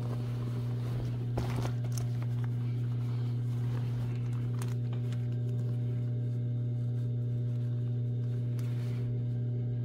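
Steady hum of an industrial sewing machine's motor running idle, with a few faint clicks and rustles of stiff denim being handled under the presser foot; no stitching.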